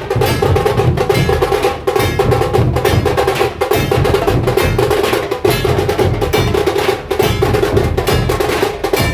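Dhol-tasha ensemble playing a fast, loud, unbroken rhythm: deep dhol beats under rapid, sharp tasha strokes.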